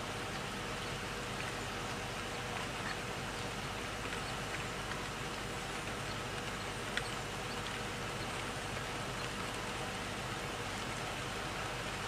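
Steady, even hiss with a faint constant hum beneath it and a single short click about seven seconds in.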